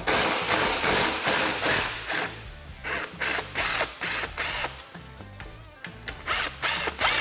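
Cordless Milwaukee FUEL impact driver backing out two screws, with a long rattling run at the start, then shorter bursts a little after three seconds and again near the end.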